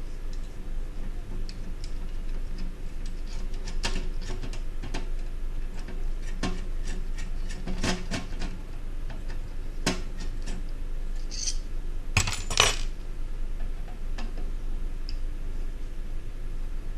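Scattered small metal clicks and clinks as the metal bracket, screws and casing of a hot air rework station are handled and taken apart, with a louder rattle of clinks about twelve seconds in. A steady low hum runs underneath.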